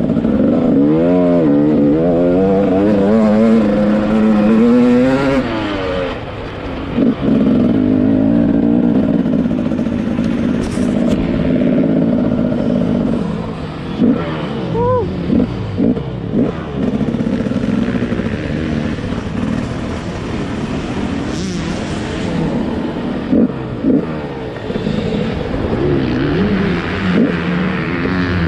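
Two-stroke motocross bike engine ridden hard. The revs rise and fall quickly over the first few seconds, then hold high and steady, and later turn choppy with several brief loud spikes.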